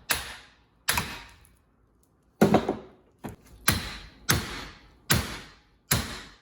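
A hammer striking the end of a metal rod to drive it out of a scrap electric motor. There are about eight sharp blows, roughly one every 0.7 s with a longer gap after the second, each ringing briefly. The rod is starting to move, and its struck head is mushrooming.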